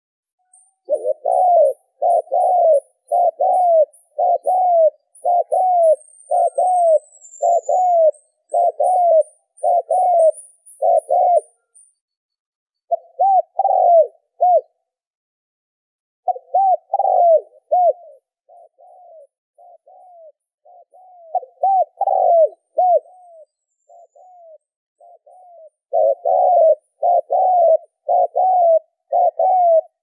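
Spotted dove cooing: a long run of rapid, evenly spaced coos that breaks off for a few seconds near the middle, goes softer for a while, then comes back loud near the end. A small bird chirps faintly and high in the background during the first dozen seconds.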